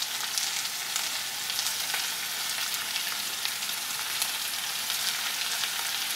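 Onions, green chillies and tomatoes sautéing in hot oil in a kadai: a steady sizzling hiss with small crackles.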